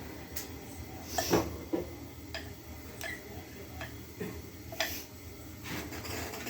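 A utensil clinking and tapping against a bowl of brownie batter as it is scraped out: irregular light clicks, about one every half second to a second.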